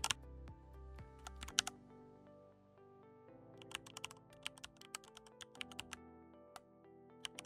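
Computer keyboard typing in quick bursts of keystrokes, with a pause of about two seconds in the middle, over faint background music.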